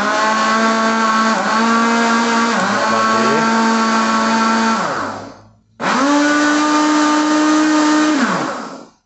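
Britânia countertop blender motor running in two bursts on a jar packed with guava chunks: the first about five seconds long, its pitch sagging twice as the blades bog down, then after a short pause a second, higher-pitched run that winds down near the end. The blender is a low-powered one, overloaded with all the fruit put in at once.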